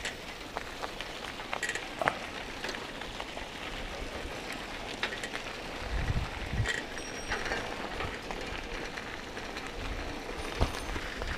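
Bicycle rattling and clicking over a rough road, with steady tyre and road noise and bursts of wind rumble on the microphone about six seconds in and again near the end.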